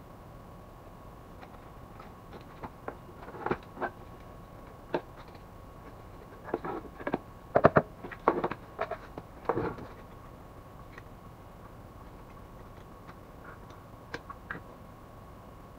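Clicks, knocks and rattles of metal and plastic parts as an HP LaserJet 400 M401dn fuser assembly is handled and fitted back together by hand. The knocks bunch up and are loudest between about three and ten seconds in, with a few light clicks near the end.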